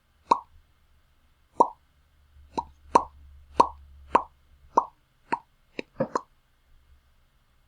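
Mouth lip pops, about eleven separate sharp pops, slow at first, then coming about every half second, and ending with a quick double pop about six seconds in.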